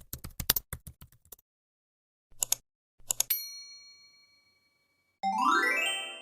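Edited sound effects: a quick run of keyboard typing clicks, two more short bursts of clicks, then a bright bell ding that rings out. About two seconds later comes a loud sound that rises in pitch and fades as it climbs.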